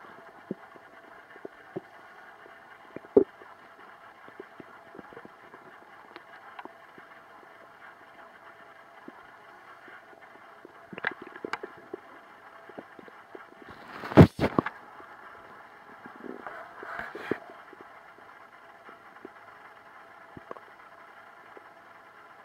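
Stomach gurgling and rumbling in short, scattered bursts over a steady background hiss. There is a cluster of gurgles about eleven seconds in, the loudest burst about fourteen seconds in, and a longer rumble just after sixteen seconds.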